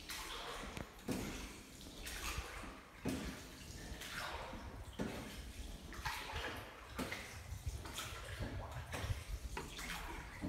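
Oars of a small rowing boat dipping and pulling through calm water in a steady stroke about once a second, each stroke a splash and swish of water, with small drips and knocks in between.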